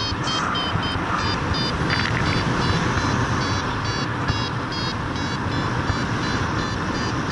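Rushing wind on the microphone in flight, with a paraglider's variometer beeping steadily about three times a second.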